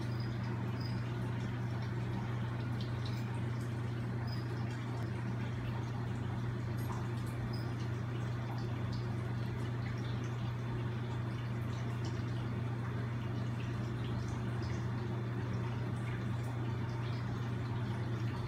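A steady low hum, with faint scattered wet clicks and smacks from a tegu lizard feeding from a plate.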